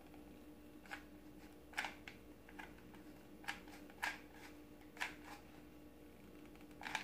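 Hot glue gun being squeezed to lay a bead of glue, its trigger giving short, sharp clicks at irregular intervals, about one a second.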